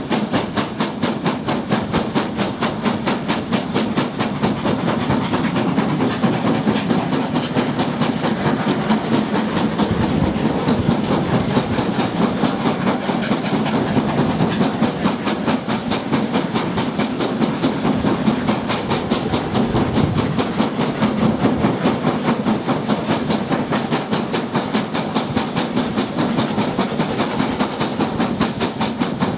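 A steam-hauled train running at speed: the locomotive's exhaust beats in a rapid, even rhythm over the running noise of the carriages, heard from an open carriage window.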